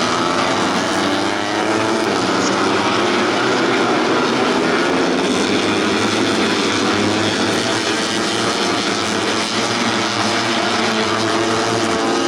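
Racing four-stroke 150cc underbone motorcycle engines running at high revs, several engine notes overlapping and rising and falling in pitch as they shift and pass.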